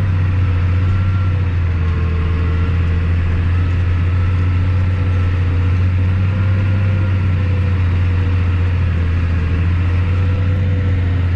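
Tractor engine running steadily: a constant low drone with a faint whine above it, no change in speed.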